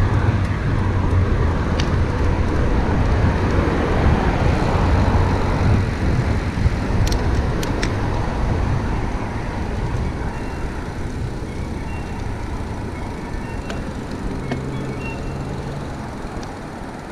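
Steady road traffic noise heard from a moving bicycle, with a low rumble that is louder for the first several seconds and eases off toward the end. A few sharp clicks come about seven seconds in.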